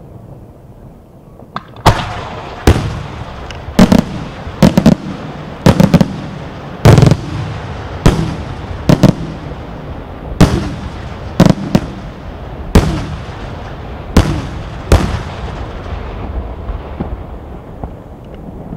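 Aerial firework shells bursting in rapid succession, a sharp bang every half second to a second, each trailing off in an echo. The volley starts about two seconds in and thins out near the end.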